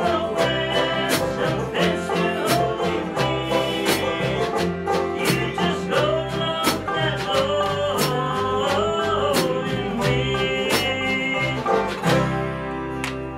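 Bluegrass-country band playing live: banjo, acoustic guitar, upright bass and drums, with a man singing. About twelve seconds in the song ends on a final chord that rings out and fades.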